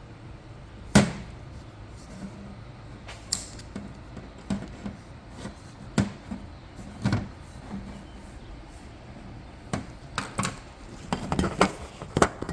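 Hand tools and 6L80 transmission parts clicking and knocking as a snap ring is worked out of a clutch housing: a dozen or so separate knocks, the loudest about a second in and a quick run of them near the end.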